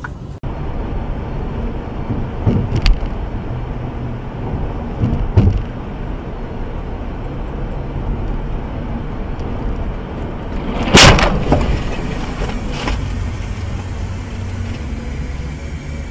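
Steady road and wind noise heard from inside a car travelling at highway speed. A few thumps cut through it, the loudest a sharp bang about eleven seconds in.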